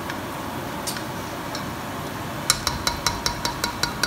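A utensil clinking against a dish: a few single clicks, then a quick run of about a dozen ringing clicks over the last second and a half, over a steady background hiss.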